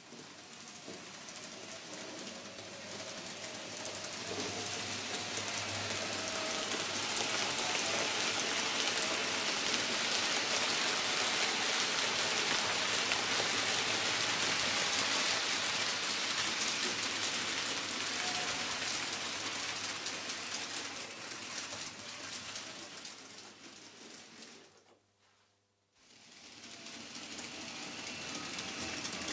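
N-scale model freight train running on the track, a dense fine rattle of small wheels on rail joints with the motor's whir. It swells to a peak and fades as the train passes, drops out almost completely for about a second near the end, then builds again as a train approaches.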